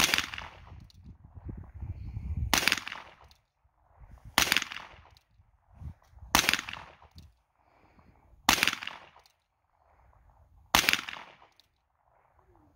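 Single-action .22 revolver fired six times, one shot about every two seconds.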